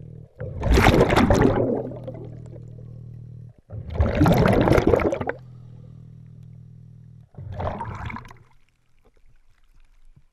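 Hookah diving regulator breathing underwater: three loud rushes of exhaled bubbles about three seconds apart, with a steady low buzzing hum between them as air is drawn in through the demand valve. It goes much quieter near the end as the diver surfaces.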